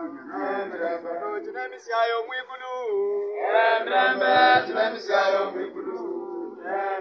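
Church choir of men and women singing a hymn together, holding long notes.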